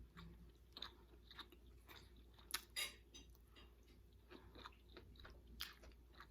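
Faint chewing and wet mouth clicks of a person eating, with a few louder clicks about halfway through and again near the end.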